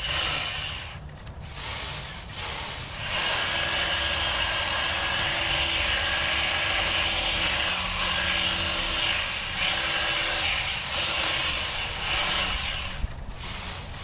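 Powered hedge trimmer running and cutting through a hedge in bursts as the operator works the trigger. It runs briefly at first, then almost continuously for about ten seconds with a few short letups, and stops shortly before the end.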